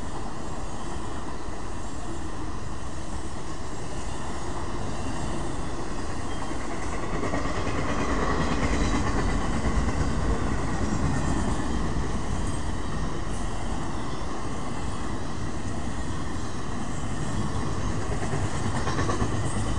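Circus train's cars rolling past: a steady rumble of wheels on rail that swells a little near the middle, with a few faint clicks.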